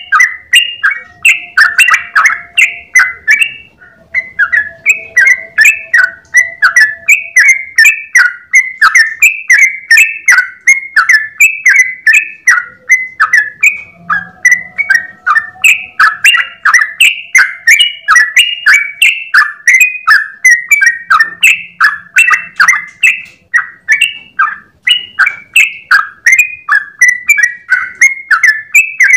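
Yellow-vented bulbul (trucukan) singing a long, unbroken run of rapid, chattering notes, several per second, the continuous 'ropel' song used as a tutor recording for other birds.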